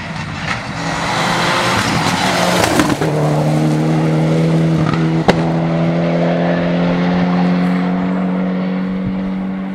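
Rally car at full throttle on a gravel stage, approaching and passing close by with a sudden drop in engine pitch about three seconds in. Its engine note then holds and climbs slowly as it accelerates away. A single sharp bang comes about five seconds in.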